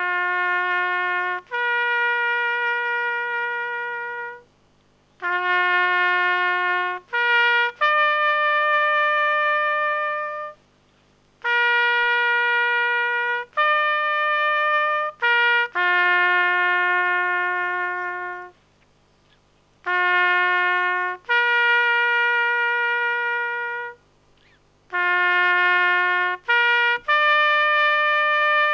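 Solo trumpet playing a slow call of long held notes, in five short phrases of two or three notes each, with a pause of about a second between phrases.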